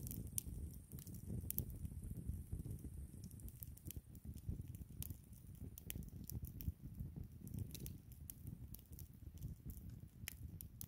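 Log campfire burning: scattered sharp crackles and pops of the wood over a low, fluttering rumble of the flames.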